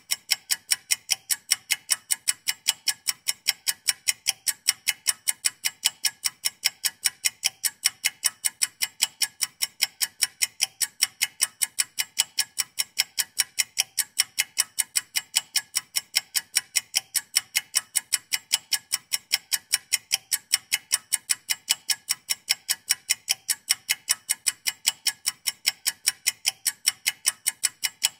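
Ticking-clock sound effect for a countdown timer: sharp, bright, evenly spaced ticks, several a second, keeping a steady beat.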